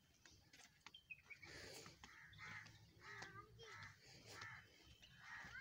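Crow cawing faintly, a steady run of short caws about two a second, starting about a second and a half in.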